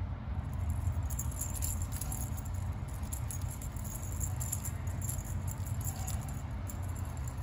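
Light metallic jingling and clinking from a cat wand toy's dangling metal chain and beads as the toy is jiggled, starting about half a second in, over a steady low hum.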